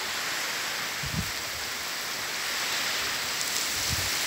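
Heavy rain pouring down onto flooded ground, a steady hiss, with a couple of low bumps about a second in and near the end.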